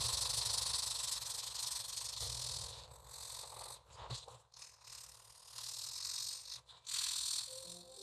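2B graphite pencil scratching across paper in long shading strokes, with a few short breaks between strokes. Soft music with held notes comes in near the end.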